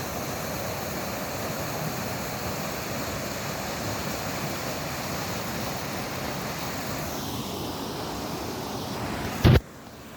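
Steady rushing noise of fast-flowing river water. Near the end a loud knock, after which the rushing drops sharply in level.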